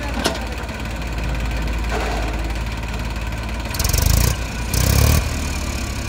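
Diesel engines of a JCB 3DX backhoe loader and an Eicher tractor running steadily while the backhoe digs and lifts a bucket of soil, with two short louder bursts of rushing noise near the end.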